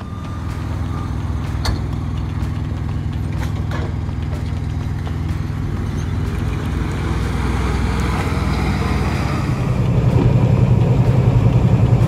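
Semi truck's diesel engine running with a steady low drone that grows louder over the last couple of seconds.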